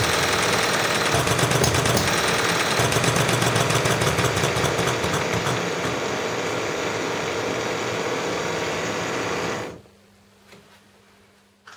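Model four-stroke hit-and-miss engine with hot-tube ignition running with a rapid clatter, over the steady hiss of the soldering-lamp burner that heats its hot tube. The clatter eases after about halfway. A second or two before the end the burner's hiss stops abruptly, leaving only a faint hum.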